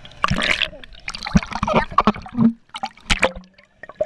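Pool water gurgling and splashing around a camera held underwater, in irregular bursts with short lulls.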